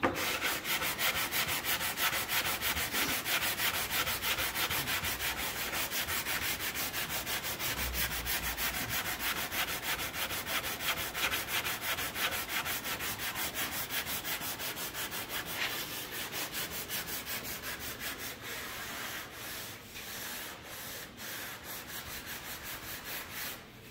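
Sanding by hand on wood in quick, even back-and-forth strokes, several a second, getting a little quieter and less even after about 17 seconds.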